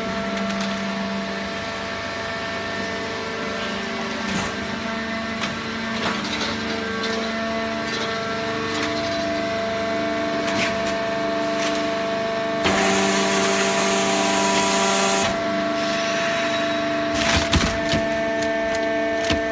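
Hydraulic scrap carton baler running: a steady machine hum with several held tones and scattered knocks and clatters. About two-thirds through there is a few seconds of hissing, and a cluster of louder knocks follows.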